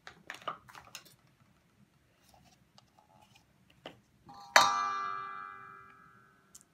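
A few light clicks from the plastic cap of an olive oil bottle being unscrewed. About halfway through, a plastic measuring cup knocks against a stainless steel mixing bowl, which rings and fades over about two seconds.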